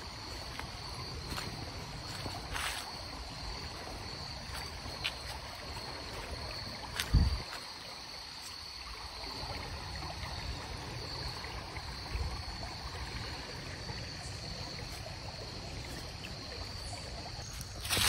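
Shallow woodland creek running over rocks: a steady wash of water, with a thin, steady high insect drone over it. A single low thump about seven seconds in.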